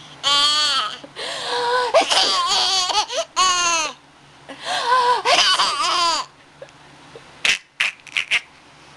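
A baby boy laughing at a sneeze: two long fits of high-pitched, gleeful laughter with rising and falling pitch, followed near the end by a few brief clicks.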